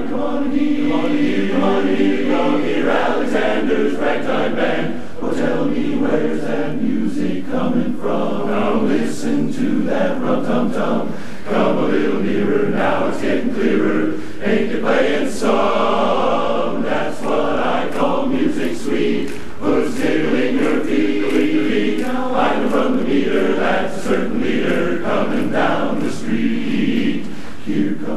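Large men's barbershop chorus of about 130 voices singing in close harmony, with held chords and crisp, clipped consonants.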